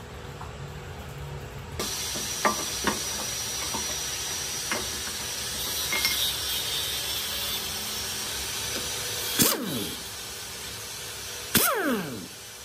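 Light metallic clinks of gears and a shaft being fitted into an engine's timing gear case over a steady hiss. Then twice, near the end, a short burst from a power impact wrench, each one spinning down in falling pitch.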